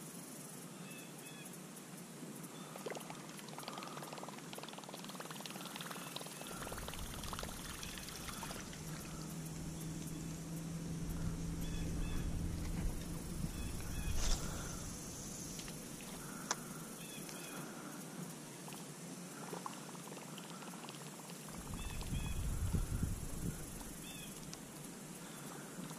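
Fishing reel being cranked through a lure retrieve, a steady whirring, with spells of low rumble about six seconds in and again near the end.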